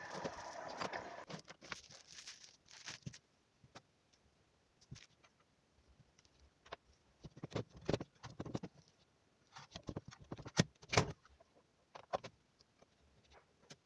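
Parts of an Evolution R255SMS miter saw being handled and fitted together by hand: a short stretch of rustling noise at the start, then scattered clicks and knocks, the loudest a couple of knocks about eleven seconds in.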